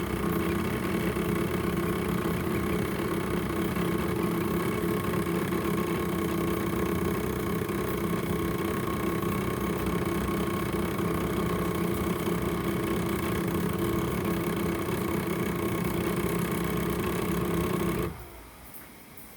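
Sovol SV07 3D printer running with a steady, even machine hum that does not change in pitch, then cuts off suddenly near the end.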